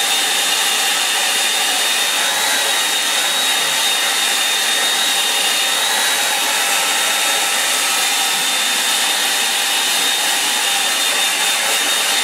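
Hand-held hair dryer blowing steadily: a continuous rush of air with a thin, steady high whine from its motor.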